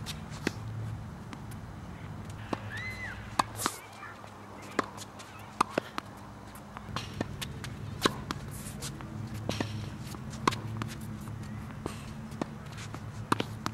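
Tennis balls struck by a racket and bouncing on a hard court during volleying practice: sharp irregular pops, roughly one every second or so, some in quick pairs. There are a couple of short high squeaks between them.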